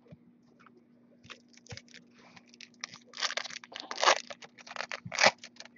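A Topps Chrome trading-card pack's foil wrapper being torn open and crinkled by hand: scattered crackles that come in louder, denser bursts from about three seconds in.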